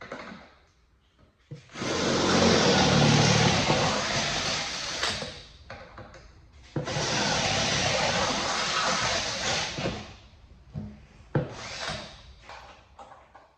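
Power drill boring pilot holes through the car's underbody steel for bolt-in subframe connectors: two long runs of several seconds each, with short knocks and brief bursts around them.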